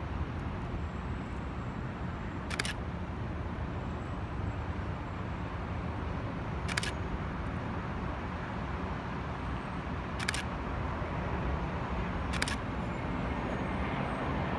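Steady outdoor rumble of road traffic and a distant Airbus A350-900 on approach, swelling slightly toward the end. Four sharp camera-shutter clicks come a few seconds apart.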